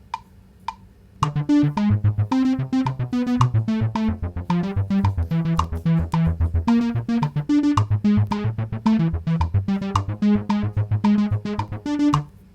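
Bass notes from the GarageBand app on an iPad, a quick run of low notes that starts about a second in and stops just before the end. A steady tick, the app's metronome, keeps time about every 0.6 seconds throughout.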